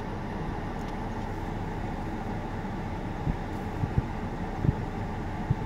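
A pickup truck on fire: a steady low rumble, with a few sharp pops about one a second in the second half.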